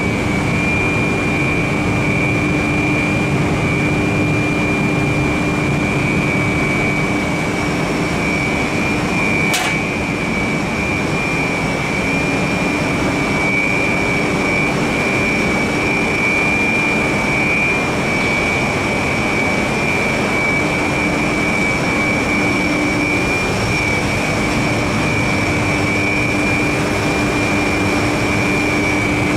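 Rotary drum dryer plant machinery running: a steady, loud drone with a constant high-pitched whine over it. A single sharp click about ten seconds in.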